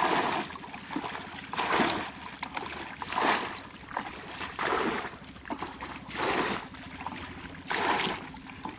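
Plastic bucket bailing muddy water out of a shallow pond: each scoop is flung out and lands in a splash, about every one and a half seconds.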